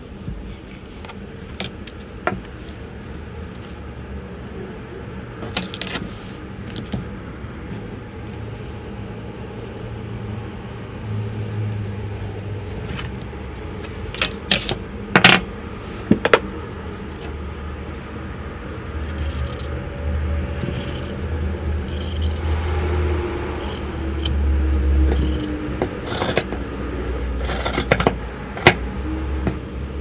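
Scattered sharp clicks and clinks of small hard objects being handled, over a low hum that comes and goes.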